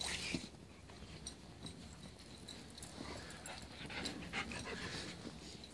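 Alaskan Malamutes panting quietly, with faint scattered rustles and small clicks as they move about in the snow.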